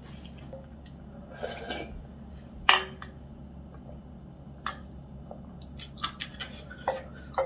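Metal spoon clinking against a stainless steel bowl while eating: a few sharp clinks spaced out, coming more often near the end, with soft chewing between them.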